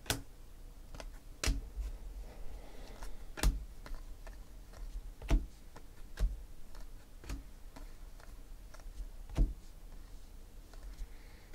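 Chromium Donruss Optic football trading cards being flipped through by hand, each card slid off the stack and snapped against the others with a sharp click every second or two at an uneven pace.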